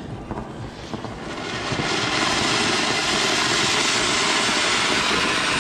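Anar (flowerpot fountain firework) spraying sparks with a loud, steady hiss that builds up over the first two seconds.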